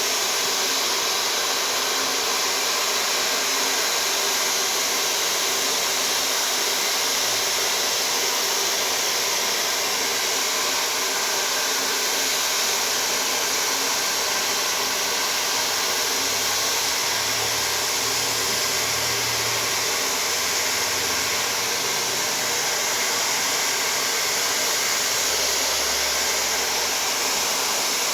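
Hair dryer blowing steadily on high, a constant rushing whir of air and fan motor, used to melt wax crayons glued to a canvas.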